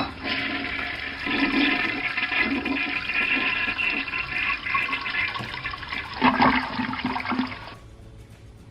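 Toilet-flush sound effect from a Kidsmania Sour Flush candy toilet's small built-in speaker, a rush of flushing water that stops about a second before the end.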